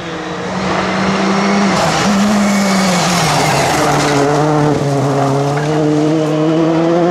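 Rally car engine running hard at high revs, with a rush of tyre and road noise in the middle; about halfway through the engine note drops lower and then holds steady.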